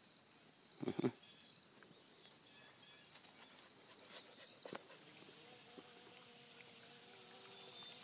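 Steady high-pitched chorus of late-summer insects such as crickets, with a single thump about a second in.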